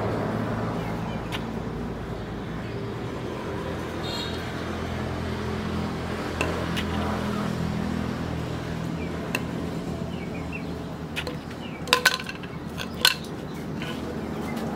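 A rusty steel chisel being handled and set against a concrete floor, with a few light ticks and two sharp metallic clinks near the end, over a steady low hum.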